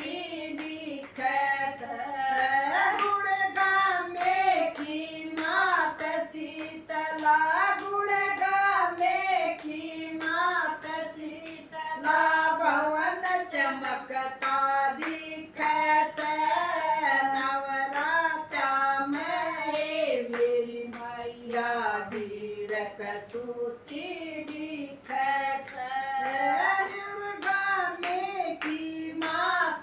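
Women singing a Hindi devotional bhajan together, with hand claps keeping a steady beat.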